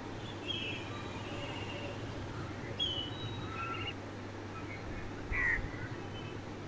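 Birds calling: a handful of short, separate calls spread over a few seconds, above a steady low background hum.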